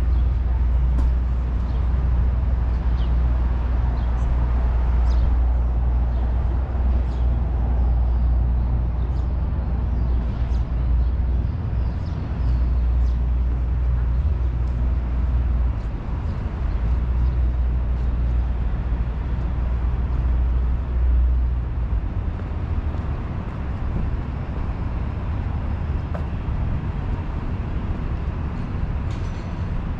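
City street traffic: a steady low rumble of vehicles that eases about two-thirds of the way through.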